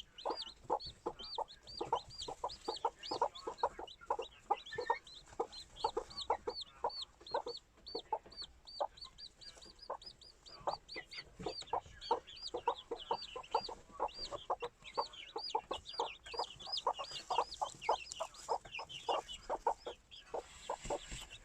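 Serama hens clucking in a quick steady run, about three soft clucks a second, while brooding chicks peep in high, repeated chirps over them.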